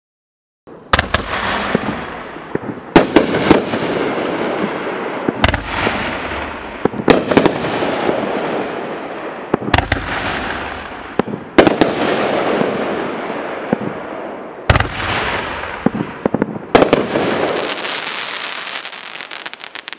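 A 12-shot consumer firework cake of 2-inch shells going off: about a dozen sharp bangs at uneven spacing, some in quick pairs, each followed by a long fading hiss. Near the end the breaks turn into dense crackling from the crackle palm shells.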